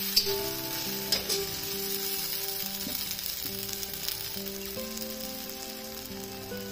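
Thick tomato-onion masala sizzling in oil in a brass kadhai as it is fried down until the oil separates, with a couple of knocks of a metal spatula against the pan near the start. Soft background music with held notes plays over it.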